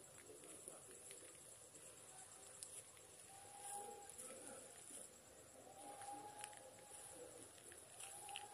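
Faint, steady chorus of crickets chirping, a high even trill.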